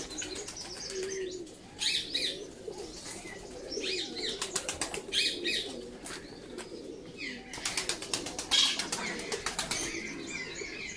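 Birds chirping in short repeated bursts over low cooing, with the loudest flurry about eight seconds in.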